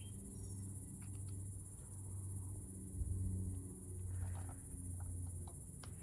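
Faint outdoor ambience: a steady high-pitched insect drone, like crickets, over a low hum, with a few light clicks and taps.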